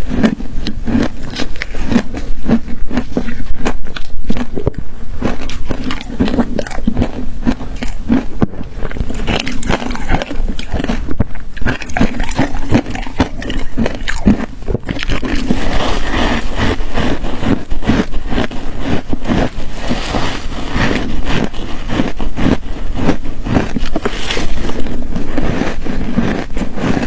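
Ice crunching close to the microphone: a dense, unbroken run of crisp crunches and crackles.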